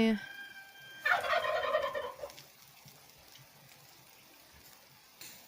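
Domestic fowl giving a single call of about a second, about a second in.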